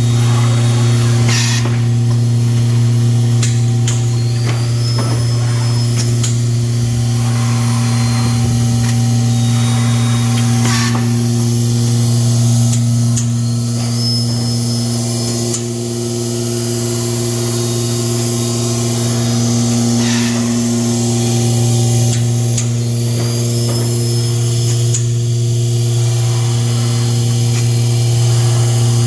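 Automatic mask packaging and band-sealing machine running with a steady electrical hum and a hiss, with an occasional sharp click every several seconds.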